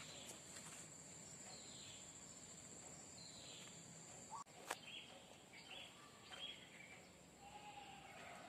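Faint outdoor garden ambience: a steady high-pitched insect drone that cuts off abruptly about four seconds in, with short falling bird chirps scattered through and one sharp click just after the cut.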